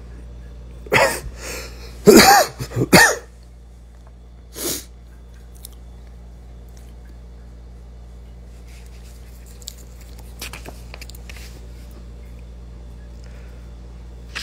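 A person coughing and clearing their throat: a short burst about a second in, a loud cluster of coughs around two to three seconds in, and one more a little later. Faint rustles and taps of paper pages being handled follow.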